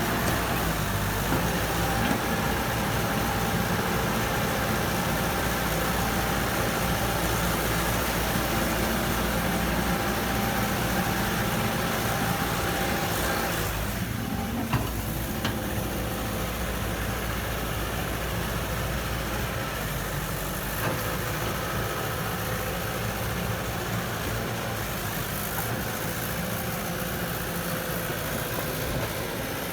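Heavy diesel engine of an excavator or dump truck running steadily, with a short break and a click about halfway through, then running on a little quieter.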